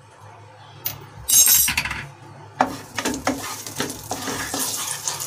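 Chilli powder stirred in hot oil in a nonstick kadai: a short, loud clatter about a second in, then a wooden spatula scraping the pan in quick strokes over a light sizzle.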